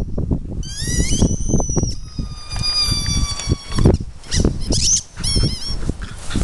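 High-pitched animal cries. One rises about half a second in and levels into a long held tone lasting about three seconds, and short wavering cries follow near the end. Rustling and bumps run underneath, with a sharp bump about four seconds in.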